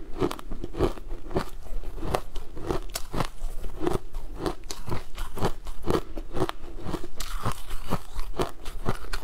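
Close-up crunching of chunks of crushed ice being chewed, sharp crunches coming steadily about two a second.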